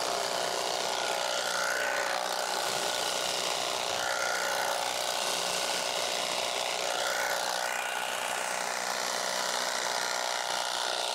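Battery-powered tea-harvesting machine, a hedge-trimmer-style shear driven by an electric motor, running steadily as it cuts across the tea bushes, with a few brief rises in pitch.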